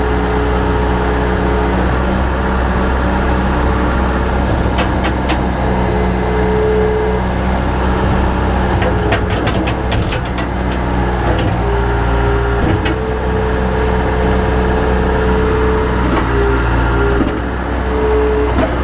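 Bobcat 853H skid steer's diesel engine running steadily, with a whine that steps up and down in pitch as it works. A few short knocks come about a quarter and about halfway through.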